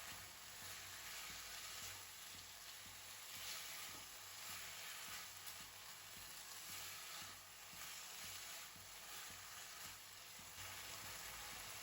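Chicken pieces sizzling faintly as they stir-fry over high heat in a pan of hot sesame oil and oyster sauce.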